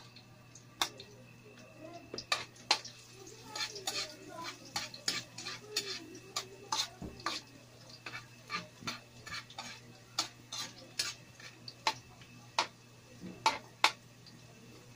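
A metal ladle stirs garlic in a wok, clinking and scraping against the pan in sharp, irregular strokes, about one or two a second.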